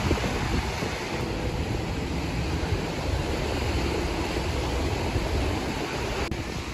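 Surf washing up on a sandy beach, a steady rush of noise, with wind rumbling on the microphone.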